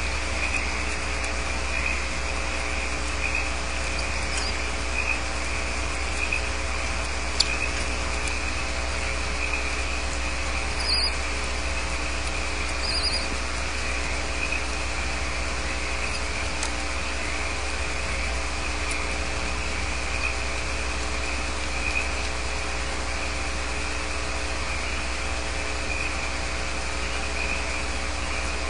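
Steady electrical hum and hiss from a nest-box camera's microphone, with a continuous high chirring band over it. There are a few faint clicks and two short scratchy sounds about two seconds apart near the middle.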